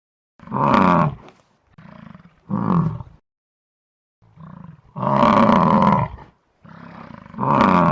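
An animal calling: four loud pitched calls in a row, each a quieter lead-in swelling into a louder part; the third call is the longest, about two seconds.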